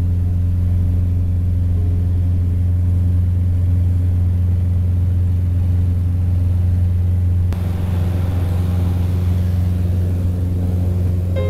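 Single-engine Cessna Cardinal's piston engine and propeller at takeoff power, heard from inside the cabin as a loud, steady drone during the takeoff roll. About seven and a half seconds in, a rushing hiss of air joins the drone as the plane lifts off.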